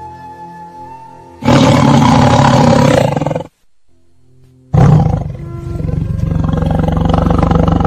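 Two loud big-cat roars over soft background music: the first comes about a second and a half in and lasts some two seconds, and the second starts near the five-second mark and runs on as a long rough roar.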